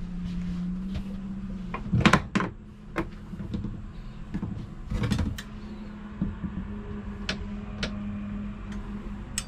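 Scattered knocks and clicks of fittings and panels being handled inside a truck camper, over a steady low hum.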